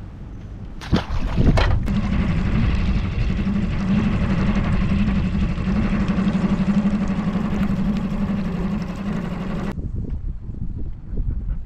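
Small outboard motor on an aluminium tinny: two sharp knocks about a second in, then the motor running steadily at a constant low speed. It cuts off suddenly near the end.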